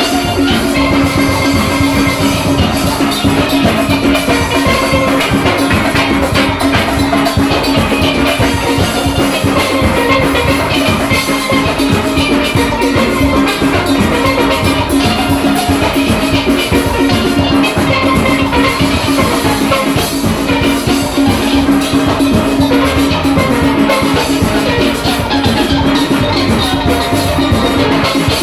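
A full steel orchestra playing live: many steelpans across their ranges, backed by drums, loud and continuous.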